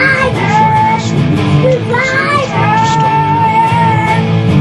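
Rock song playing: guitar and band with a sung melody of long held, wavering notes.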